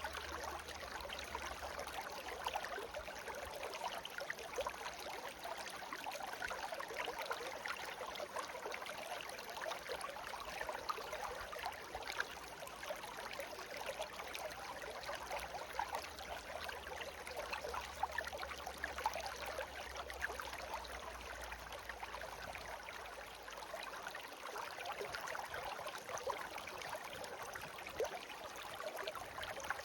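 Shallow stream babbling steadily over stones, a continuous rush dotted with many small splashes and gurgles.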